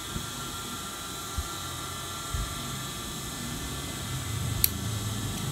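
Steady mechanical hum with a few faint high tones, broken by soft clicks. About four and a half seconds in there is one sharp snip of small scissors cutting into fabric.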